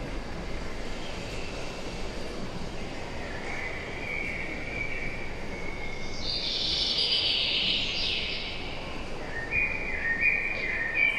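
Bird calls and chirps, an opening forest soundscape, over a steady hall hum. The calls grow busier from about a third of the way in, with a brighter hiss in the middle.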